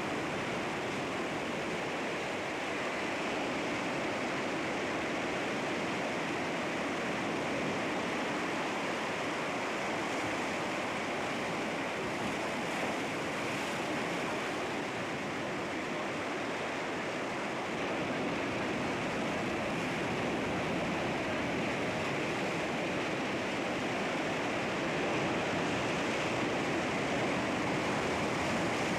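Sea waves breaking against rocks: a steady, unbroken rush of surf that swells slightly near the end.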